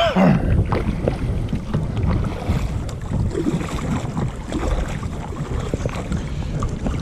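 Strong gusting wind buffeting the microphone as a low, uneven rumble, with water slapping against a kayak's hull in rough chop.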